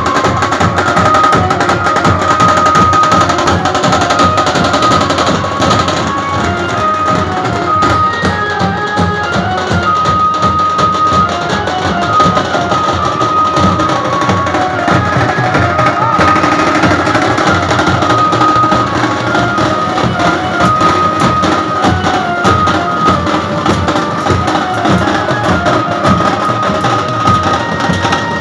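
Band of large steel-shelled drums beaten with sticks in a fast, dense, continuous rhythm, with a high melody of held notes playing over it.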